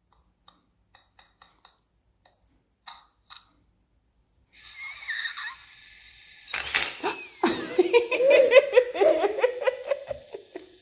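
Little Live Pets dragon toy going through its electronic sounds: a few faint clicks, then chirping glides and a loud giggling sound over the last four seconds.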